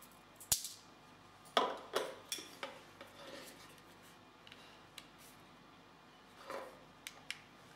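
Light plastic clicks and taps from handling a Maker Factory 3D printing pen: a sharp click about half a second in, a few more a second or two later, and another small cluster near the end as its power plug is pushed into the pen.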